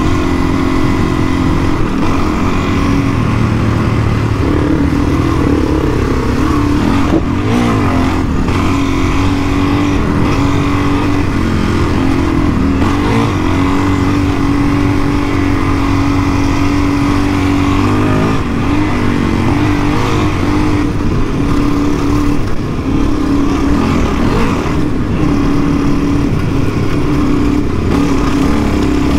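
Suzuki DR-Z dirt bike's single-cylinder four-stroke engine running while being ridden, its pitch wavering up and down with throttle changes, with a low rumble of wind noise underneath.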